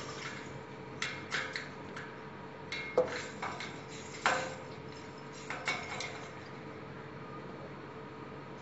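Irregular light knocks and clicks, about ten in all, as the cat bats at toys hanging on a string against a railing post; the sharpest knock comes about three seconds in. A steady faint hum runs underneath.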